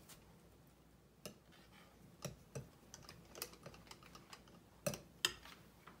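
Light, irregular clicks and taps of kitchenware being handled on a counter, with two slightly louder knocks near the end.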